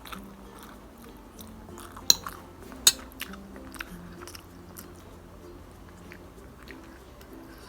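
Close-up eating of instant noodles: chewing and mouth sounds with many short sharp clicks, two of them loud about two and three seconds in, over quiet background music.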